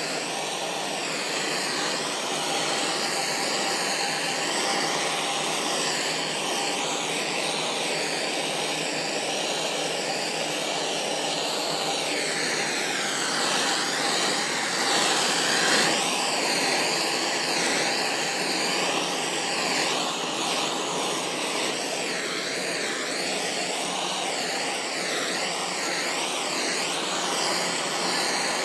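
Handheld blowtorch flame burning with a steady rushing hiss whose tone wavers as it is swept back and forth over fresh epoxy resin to pop surface bubbles.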